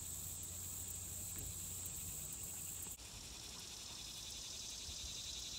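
Steady, high-pitched chorus of summer insects buzzing in the trees, with a faint low hum underneath. About halfway through the sound changes abruptly to a lower, pulsing insect chorus.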